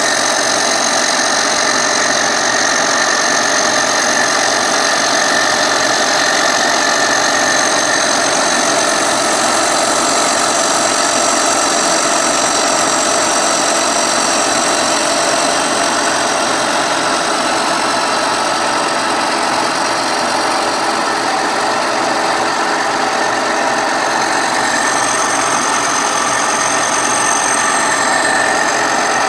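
Kearney & Trecker milling machine running a face mill across a cast iron straight edge: a steady cut with several high, even whining tones over a dense grinding noise.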